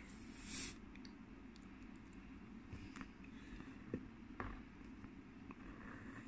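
Faint ticks and light scratching of a black marker outlining a drawing on paper, with a short hiss about half a second in, over a low steady hum.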